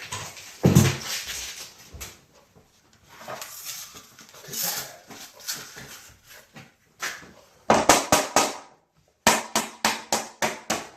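Hands handling things at close range: a thump about a second in, then rustling, then a quick run of sharp taps in the last few seconds.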